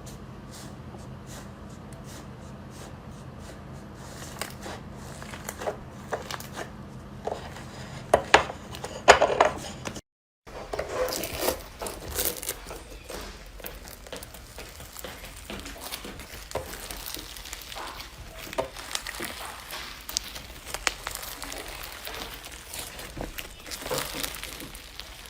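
Slime being squished and pressed by hand, making crinkling, crackling clicks. Two separate clips are split by a brief gap about ten seconds in. The first runs over a low hum and builds to a few loud pops; the second is a denser, continuous crackle.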